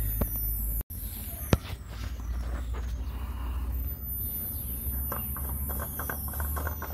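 Faint scraping and light ticks of a spin-on oil filter being threaded by hand onto its engine mount, over a low steady hum, with one sharp click about a second and a half in.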